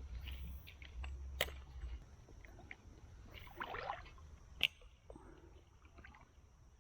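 Creek water sounds with a few sharp clicks from fishing tackle, the loudest click a little over four and a half seconds in. A short splashy rush comes about three and a half seconds in.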